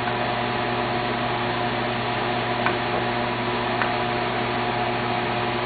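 Steady electric motor hum with hiss, like a kitchen fan running, with a couple of faint clicks of a spoon against the pan as the sardines in coconut milk are stirred.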